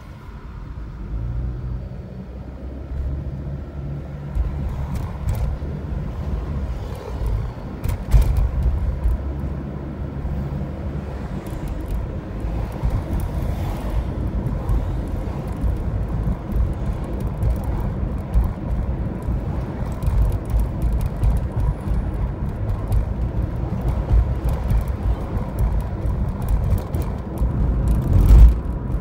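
Car engine and tyre rumble heard from inside the cabin, growing over the first couple of seconds as the car pulls away and then running steadily at road speed. A few short knocks, with a louder thump near the end.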